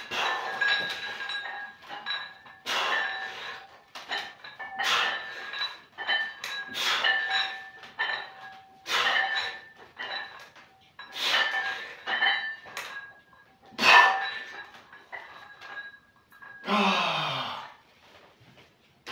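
A man breathing out hard with each rep of a lying barbell triceps extension, about one breath every two seconds, with a short grunt near the end as the set finishes.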